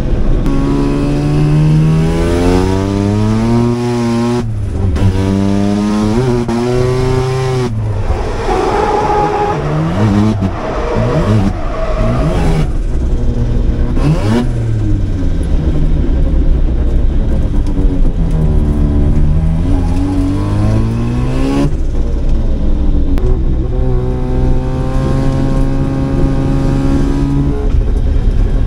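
Mazda RX-7 FD3S drift car's 13B rotary engine revving hard on track, its pitch repeatedly climbing and then dropping abruptly as the throttle and gears change.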